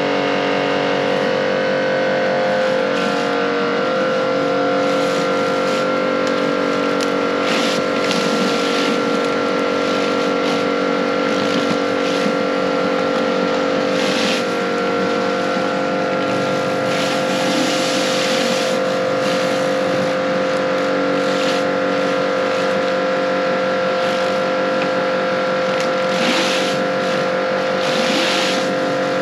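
Pressure washer running steadily at a constant pitch, with several short bursts of hissing spray as the water jet blasts the yard surface.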